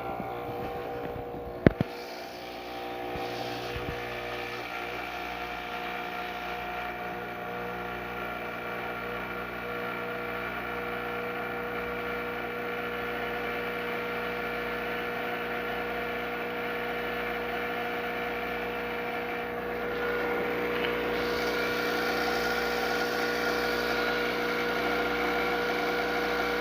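Gaggia Classic espresso machine's vibratory pump buzzing steadily as it pulls an espresso shot through a very finely ground puck, after a sharp click near the start. About twenty seconds in the buzz gets a little louder and brighter.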